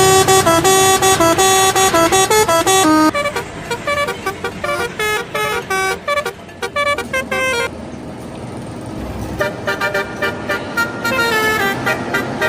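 Indonesian bus telolet horn playing a quick, stepping multi-note tune, loudest in the first three seconds and choppier after. It breaks off for about two seconds about two-thirds of the way in, then a horn starts playing notes again.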